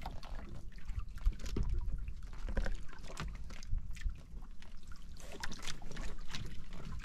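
Water lapping and trickling against the hull of a small outrigger fishing boat, over a steady low rumble, with scattered small knocks and clicks.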